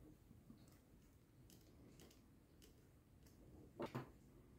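Near silence with faint clicks of a small screwdriver turning an M3 screw into the plastic microphone housing. About four seconds in comes a short, louder clack as the screwdriver is set down on the wooden table.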